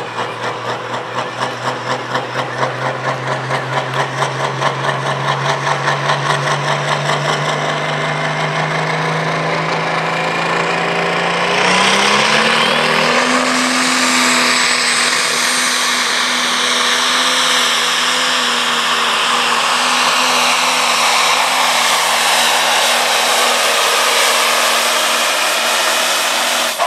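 Super stock pulling tractor's turbocharged diesel engine, held at a steady, pulsing rev while hooked to the sled. About 12 seconds in it jumps up in pitch and loudness to full power for the pull, with a high whine over the engine until the end.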